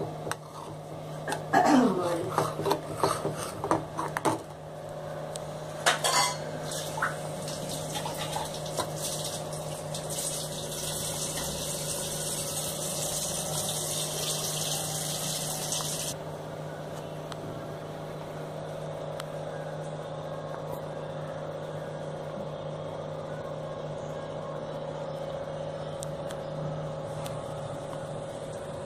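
A perforated metal ladle clinking and scraping against a metal kadai of curry gravy, in a quick cluster over the first few seconds and once more about six seconds in. After that there is a steady low hum, with a hiss that cuts off suddenly about halfway through.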